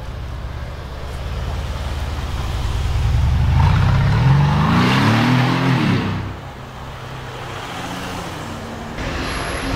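Brabus-tuned Mercedes-Benz G550 4x4²'s 4.0-litre twin-turbo V8 accelerating away, its note rising for a couple of seconds from about three seconds in, then dropping off suddenly as the throttle closes and settling to a quieter, steady run.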